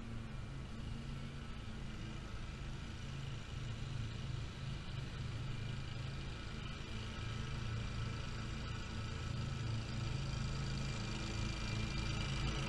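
Great Dane Super Surfer stand-on mower's engine and cutting deck running under load, a steady engine hum that grows gradually louder as the mower approaches.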